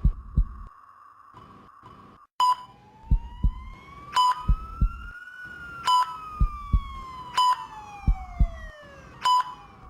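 ICU patient monitor sound effect: a sharp beep about every 1.7 s, five in all, over paired heartbeat thumps and a steady hum. About three seconds in, a siren-like tone slowly rises, then falls away by near the end.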